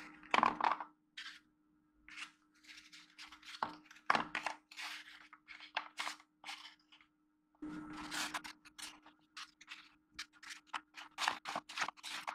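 Folded paper origami diamonds being handled and set on a table: irregular crisp rustling and crinkling of stiff paper with light taps, over a faint steady low hum.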